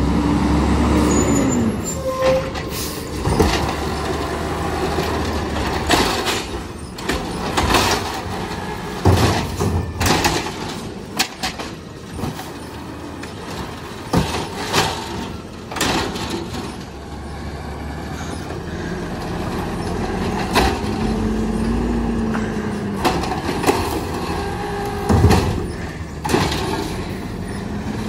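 Automated side-loader garbage truck at work: its engine revs up and falls back with a rising-and-falling whine near the start and again about twenty seconds in. Through the middle come a run of bangs and clatters as carts are lifted and dumped into the hopper, with one more sharp bang near the end.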